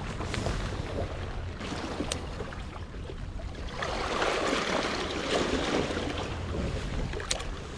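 Wind rumbling on the microphone and seawater washing over boulders, the wash swelling for a few seconds in the middle. Two sharp ticks fall in it, one early and one near the end.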